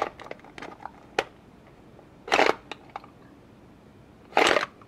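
Plastic handling of a Hot Wheels toy trailer: soft clicks, then three short sliding strokes about two seconds apart as its plastic car tray is pushed in and pulled out.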